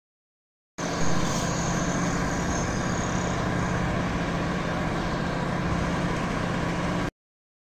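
Steady outdoor noise with a low engine hum of distant vehicles, starting about a second in and cutting off suddenly near the end.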